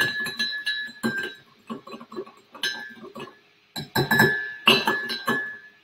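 Metal spoon stirring in a ceramic mug, clinking against its sides in quick irregular runs with short pauses, each strike leaving a bright ringing tone, as sugar is dissolved into hot water.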